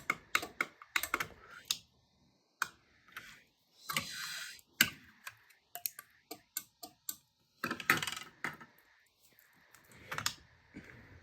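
Irregular run of small, sharp clicks and taps, with a brief hiss about four seconds in.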